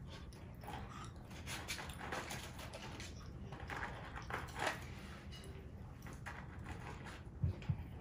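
A child chewing chicken nuggets and fries with wet mouth noises, and scattered soft crackles as she picks food from the cardboard nugget box. Two short low thumps near the end.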